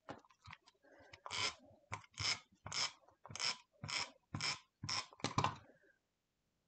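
Scrapbooking tape runner being pulled along the back of a thin paper strip in short strokes: about eight quick ratcheting rasps, roughly two a second, after a few small clicks as it is picked up.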